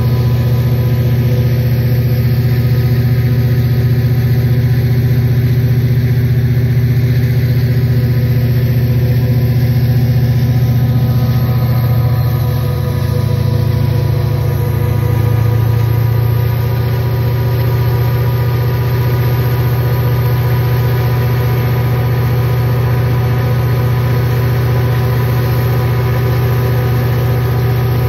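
EMD 645E3 sixteen-cylinder two-stroke diesel prime mover of an SD40-2 locomotive running flat out in throttle run 8 during a load test, giving a loud, steady, deep drone.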